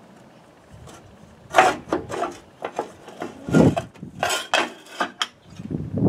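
The lower control panel of a Craftsman EZ-3 riding mower being worked loose and lifted off the frame: after about a second and a half, a run of irregular knocks, scrapes and rattles lasting about four seconds.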